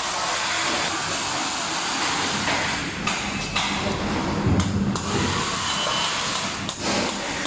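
Rustling and handling noise as hands pull wiring through an electric scooter's stem, with a few light knocks over a steady hiss.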